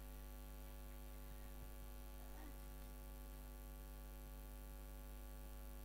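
Steady electrical mains hum with a buzzing row of overtones, unchanging throughout; nothing else stands out.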